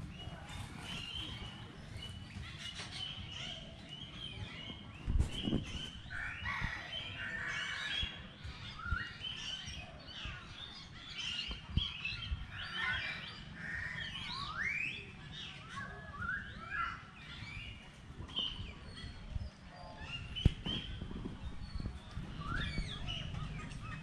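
Several birds chirping and calling, short notes and quick sliding whistles coming and going, over a steady low rumble. Two sharp knocks, about five seconds in and again near the end.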